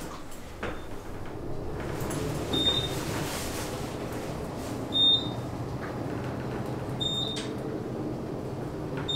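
Elevator car rising, with a steady low hum and four short high beeps about two seconds apart.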